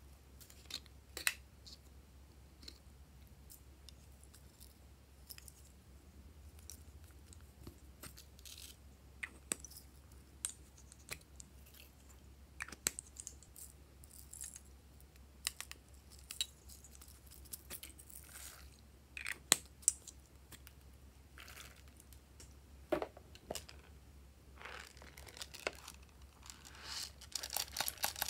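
Glossy slime being worked by hand: scattered sticky clicks and pops with crinkly, crunchy crackles, coming thicker near the end.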